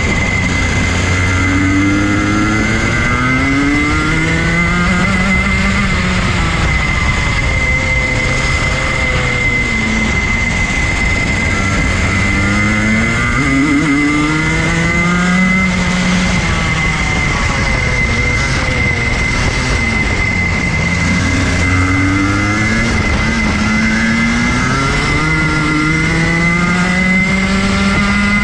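Single-cylinder 125cc two-stroke Rotax Junior Max kart engine heard on board, its pitch climbing for several seconds on each straight and dropping off into each corner, about four times over. Wind and road noise run underneath.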